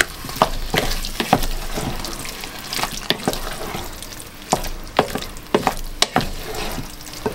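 Wooden spoon stirring a thick, chunky chicken, bacon and leek sauce in a stainless steel saucepan: wet squelching with irregular clicks and knocks of the spoon against the pan.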